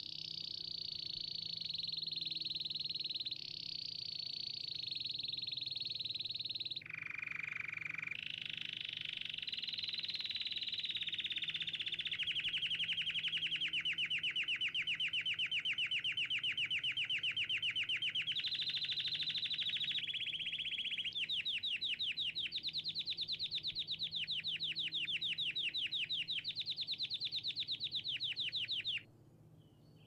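Domestic canary singing one long unbroken song of high rolls and rapid trills, switching to a new phrase every few seconds, with the fastest repeated-note trills in the second half; the song stops suddenly about a second before the end.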